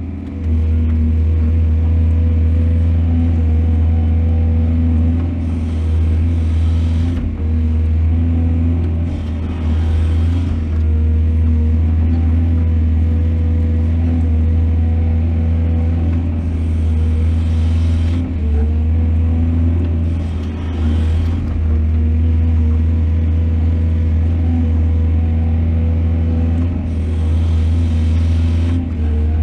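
Excavator's diesel engine running steadily at a deep, even drone, with short hissing rushes every few seconds, about five times.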